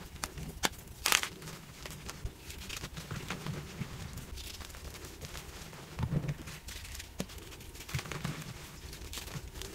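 Dried pasted gym chalk block being crushed: crisp crunching and crackling, with two sharp snaps about half a second and a second in and duller thuds around six and eight seconds.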